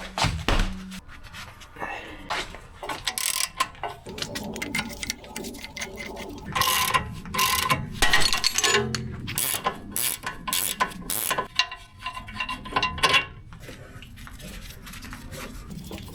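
Ratcheting clicks and metallic clatter of hand tools as a road wheel is fitted back on, busiest in the middle stretch and easing off near the end.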